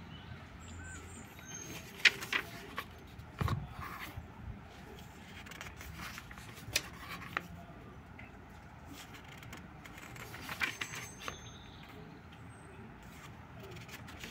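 Thin paper pages of a sketchbook being turned and handled: short rustles and crinkles, the loudest about two and three and a half seconds in and a cluster around ten to eleven seconds, over a steady low background hiss.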